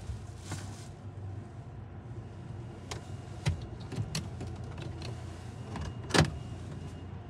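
Car interior: low, steady hum of the car's engine as the car creeps forward, with a handful of sharp, irregular clicks and knocks inside the cabin, the loudest about six seconds in.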